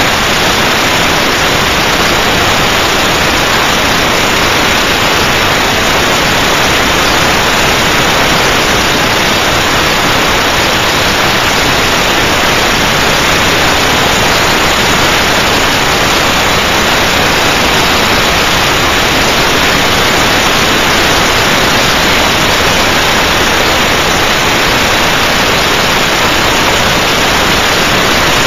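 SUPERBLAST DSC-I dry ice blast cleaner blasting steadily: one loud, even hiss of compressed air and dry ice pellets from the nozzle, with no pauses.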